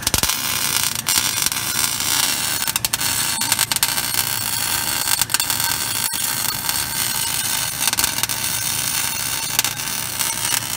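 Electric arc welding on a truck's steel front end: a steady frying crackle and hiss, broken by frequent sharp pops.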